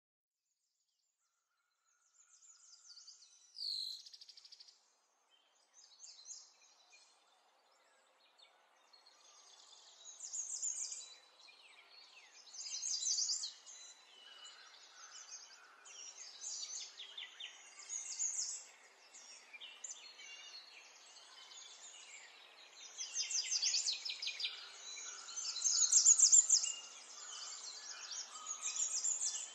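Small birds chirping and trilling in short, high, rapid bursts that start about two seconds in and grow busier and louder toward the end, over a faint hiss.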